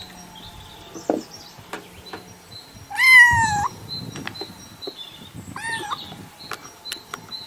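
Domestic cat meowing: one loud, drawn-out meow about three seconds in, then a shorter, fainter meow a few seconds later.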